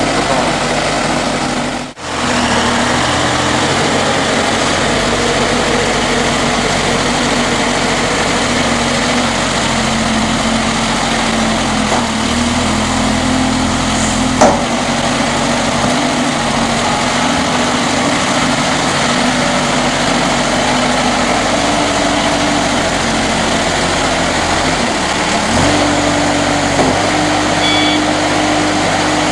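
Combilift multidirectional sideloader forklift's engine running steadily as the truck drives with a scrapped car raised on its forks. The sound drops out briefly about two seconds in, and the engine note steps up near the end.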